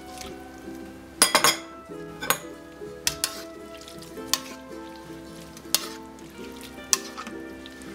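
A metal ladle and a wire-mesh strainer clinking and scraping against a metal pot while scooping beef tripe out of its blanching water: a quick clatter of several knocks about a second in, then single clinks every second or so. Background music plays throughout.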